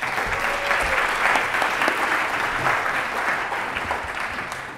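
Audience applauding, starting strongly and dying away near the end.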